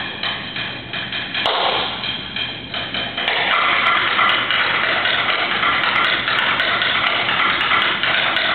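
Snare drum solo played with sticks: short phrases of fast strokes broken by brief gaps, then from about three seconds in a dense, unbroken stream of strokes at a steady loud level.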